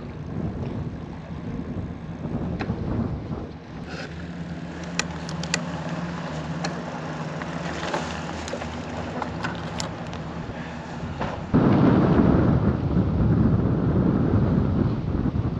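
Wind buffeting the microphone outdoors by the bay, with a few faint clicks in the middle, and a sudden much louder rumble of wind on the microphone for the last few seconds.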